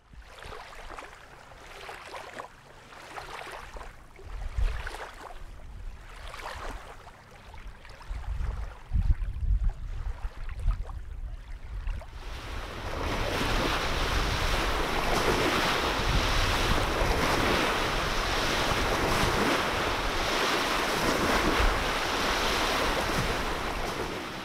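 Waves washing in and falling back, swelling about every two seconds, with wind rumbling on the microphone. About halfway through it becomes a louder, steady rush of surf and wind.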